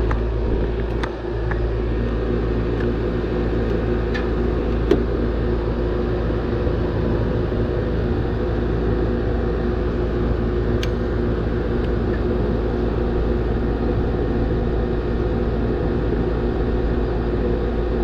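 Outdoor air-conditioning condensing unit running steadily, its compressor and condenser fan motor humming after being restarted with a new capacitor, working normally. A few light clicks sound over the hum, one about five seconds in.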